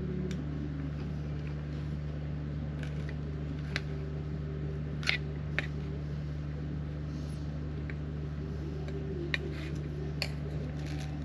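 A generator running with a steady low hum, and a few sharp clicks from cooking gear being handled on a camp table.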